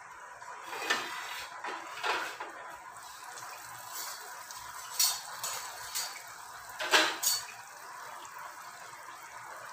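An anarsa (rice-flour dough disc) deep-frying in hot oil in a small kadhai: a steady sizzle and crackle. Several sharp clinks and knocks break in, the loudest about seven seconds in.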